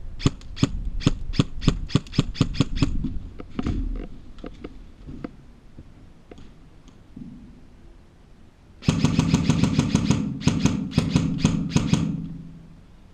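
Airsoft guns firing: a run of quick single shots, about five a second, then from about nine seconds in several rapid automatic bursts with a low hum under them.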